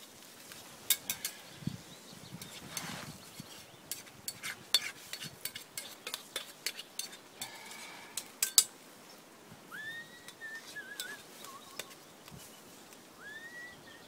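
Utensil stirring eggs in a frying pan, with quick sharp clinks and scrapes against the metal for most of the first nine seconds. From about ten seconds in, a bird calls twice, each call a rising note followed by a short trill.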